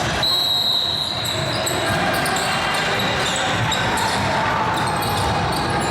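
A basketball dribbling on a gym court with background voices. There are brief high-pitched squeaks, the loudest near the start.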